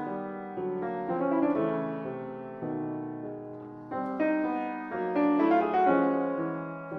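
Background piano music: notes and chords struck one after another, each left to ring and fade.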